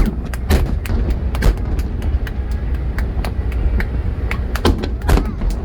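Fireworks going off: a rapid, irregular run of sharp bangs and crackles, with louder reports about half a second in, at about a second and a half, and twice near the end.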